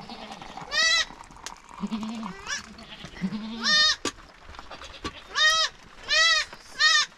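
Goats bleating over and over, mostly short high-pitched calls with a few lower ones in between.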